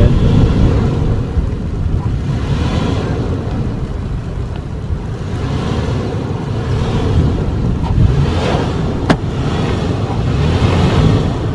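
Low rumble of a Toyota 4Runner driving slowly over a rough dirt trail, with wind buffeting the microphone in gusts. A single sharp click about nine seconds in.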